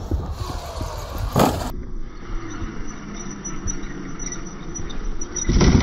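Electric RC car driving, a steady low rumble, with two loud noisy bursts about a second and a half in and near the end.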